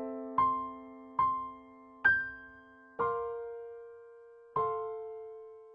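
Slow, gentle solo piano music: notes and chords struck about a second apart and left to ring out and fade.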